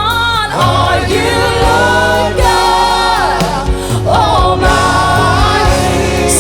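Live worship band and singers performing a gospel song, with voices over sustained keys and a bass beat.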